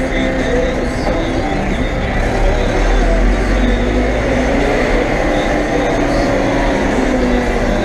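Tractor engine running steadily while driving, heard from inside the cab, briefly louder about three seconds in.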